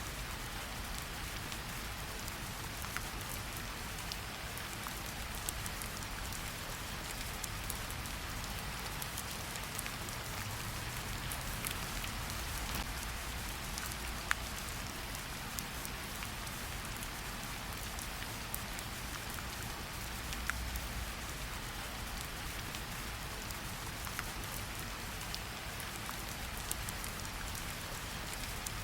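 Steady rain, an even hiss, with a few scattered sharp clicks.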